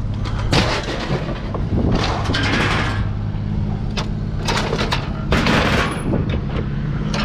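Scrap steel items crashing and clattering as they are thrown off a truck onto a scrap pile, several loud bangs and scraping crashes, over the steady hum of a running engine.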